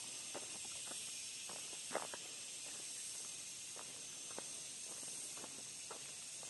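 Soft footsteps on a concrete pavement, about two steps a second and uneven, over a steady high hiss.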